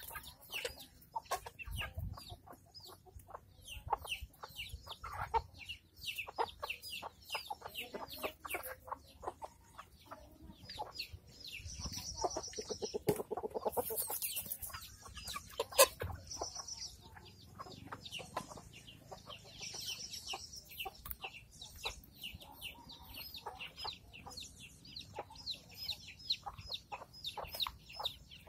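Free-range chickens clucking, with many short, high peeping calls throughout, typical of chicks. Around the middle a louder, longer squawk rises as the rooster mounts a hen, and a single sharp knock follows a couple of seconds later.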